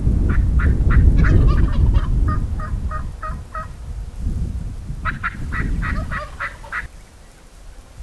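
Turkey yelping: a run of about a dozen evenly spaced yelps at roughly four a second, then, after a short pause, a second run of about eight. Wind rumbles on the microphone beneath the first run.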